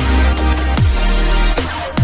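Electronic background music with a heavy bass and a deep kick drum that drops in pitch on each hit. It thins out briefly just before the end.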